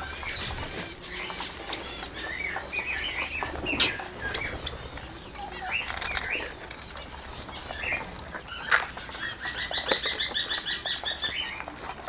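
A flock of Indian ringneck parakeets feeding at close range: short chirps and squawks with wing flutters and a few sharp clicks. Near the end, a rapid run of short chattering notes lasts about a second and a half.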